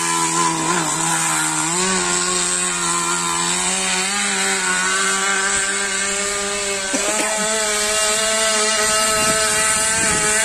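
Zenoah G2D two-stroke gas engine of a radio-controlled model speedboat running at high revs as the boat races across the water, a steady buzz that climbs in pitch about two seconds in and jumps higher at about seven seconds.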